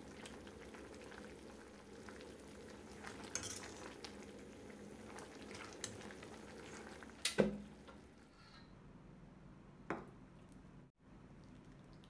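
Pot of coconut-milk red chicken curry bubbling as a metal ladle stirs it, with a few light clinks of the ladle against the pot and a sharper knock about seven seconds in; after that the bubbling is fainter.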